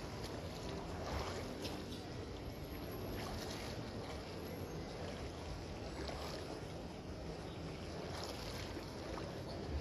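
Water splashing softly from a swimmer's arm strokes close beside a kayak, every second or two, over a steady low rumble of water and wind on the microphone.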